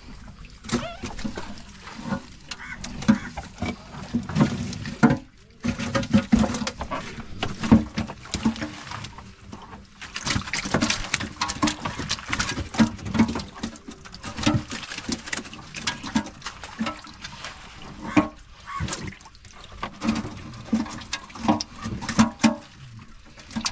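Water splashing and sloshing, with many irregular knocks and slaps.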